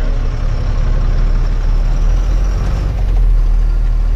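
Truck's diesel engine running under way, a steady low rumble.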